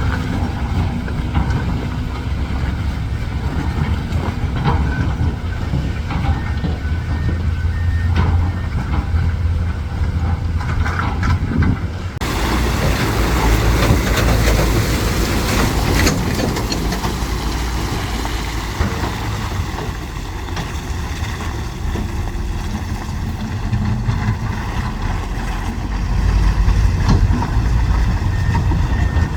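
Heavy diesel earthmoving machinery running, dump truck and excavator engines working, with the sound changing abruptly about twelve seconds in. A faint reversing beeper starts near the end.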